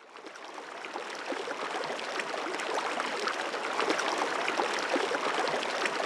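Stream water running and babbling over stones, full of small quick gurgles, fading in over the first second and then holding steady.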